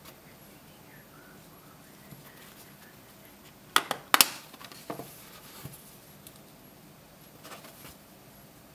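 Snap-on plastic back cover of a Samsung Galaxy phone being prised off by fingernail: two or three sharp snaps of its clips letting go about four seconds in, followed by a few lighter clicks and handling.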